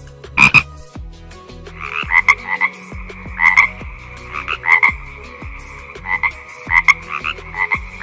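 Frog croaking repeatedly: short calls of a few quick pulses each, coming a little more than once a second.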